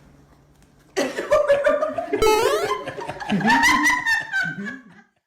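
Laughter with rising and falling squealing notes, starting about a second in and breaking off suddenly near the end.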